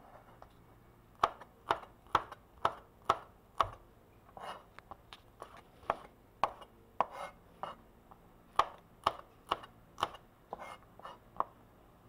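A kitchen knife chopping chillies on a plastic cutting board: a run of sharp knocks, about two a second, starting about a second in.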